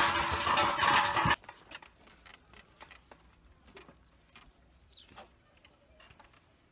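Background music that cuts off abruptly about a second and a half in. It leaves near silence with faint scattered ticks and one faint short chirp.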